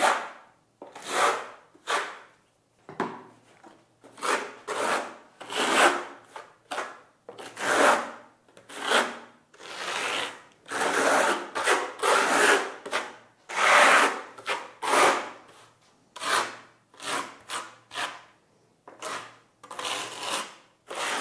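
Steel notched trowel scraping across wet lime mortar (calcina T6), combing it into ridges: a run of rasping strokes, about one a second.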